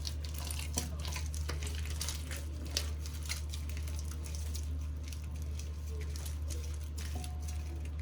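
Slime being kneaded by hand with activator worked in: soft wet squishing with scattered small clicks and pops, over a steady low hum.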